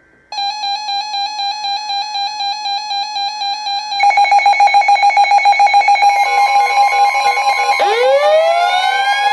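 Electronic emergency alert tones between weather warnings: a rapidly pulsing alarm tone starts suddenly and gets louder about 4 seconds in. A steady higher tone joins about 6 seconds in, and near the end a rising wail like a siren winding up.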